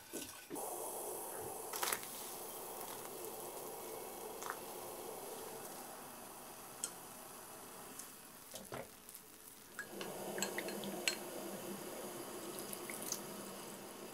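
Dashi broth bubbling at a simmer in a small enamel saucepan, with light clicks of chopsticks and utensils against the pot. The bubbling drops away in the middle and returns louder about ten seconds in, as the broccoli and tofu come to the boil.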